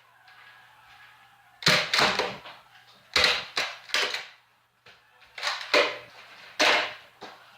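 A series of about seven sharp knocks and thuds at irregular intervals, the first about two seconds in and several close together in the middle, each dying away quickly.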